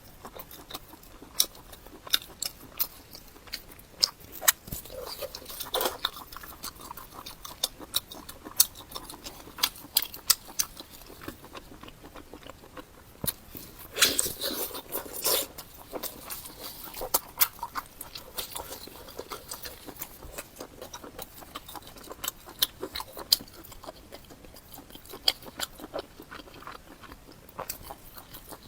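Close-miked chewing and biting of fatty pork: wet mouth smacks and sharp clicks in an uneven stream, with a denser, louder stretch of chewing a little past the middle.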